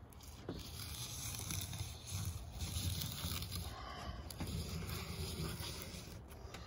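Plastic scraper rubbing and scraping along a camper's fiberglass sidewall at the edge of the slideout opening, lifting old sealant and butyl tape, with a low rumble underneath.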